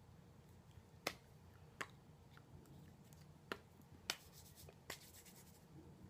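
Five sharp slaps of hands striking together while signing, spread irregularly over a few seconds, against faint room tone.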